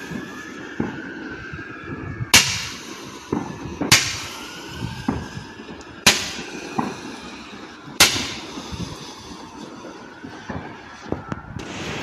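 Fireworks going off: four loud bangs roughly two seconds apart among smaller pops, with faint gliding whistles between them and a burst of crackling near the end.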